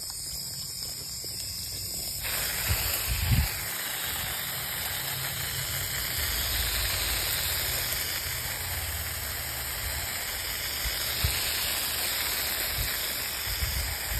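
Garden hose spray nozzle hissing steadily as it sprays water over seedlings in plastic planter boxes and onto the lawn. The spray starts about two seconds in, with a few soft low thuds underneath.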